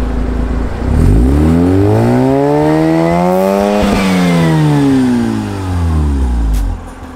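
Mazda RX-8's twin-rotor Renesis rotary engine, through an aftermarket exhaust, revved once from idle for a static exhaust noise test: the pitch climbs smoothly for about three seconds, peaks near the middle, then falls back to idle near the end.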